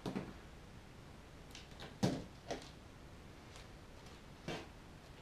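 A handful of scattered light knocks and clatters as a length of Peco O gauge model railway track is lifted and handled on the baseboard, the loudest about two seconds in.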